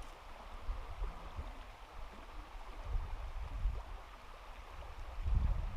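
Trout stream water flowing steadily, with irregular low rumbles coming and going, strongest about three seconds in and again near the end.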